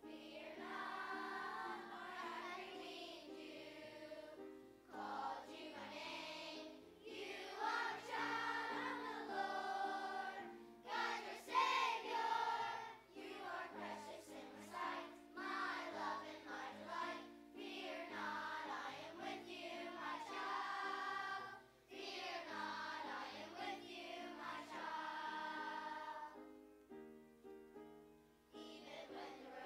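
Children's choir singing a song over a steady instrumental accompaniment, with a short break in the singing near the end.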